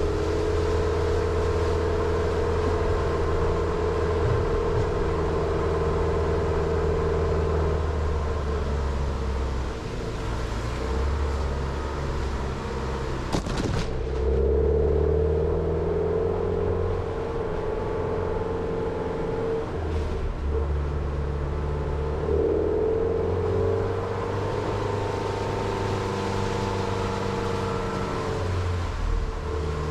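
Jeep Renegade's engine running at low road speed, its pitch rising and falling with the throttle, with tyre noise on a wet road. About halfway through, a brief crackling brush as roadside branches sweep past the car.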